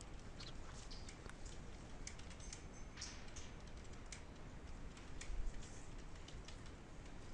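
Faint, irregular typing clicks on a computer keyboard, with a low thump a little over five seconds in.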